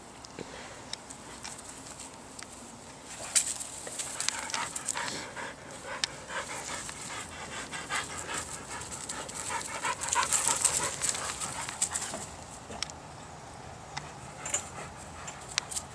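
A dog panting in quick, rhythmic breaths during rough play, loudest through the middle, with a few sharp scuffling sounds.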